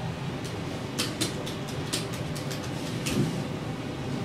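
Typing on a laptop keyboard: a quick, irregular run of key clicks in the middle, over a steady low hum.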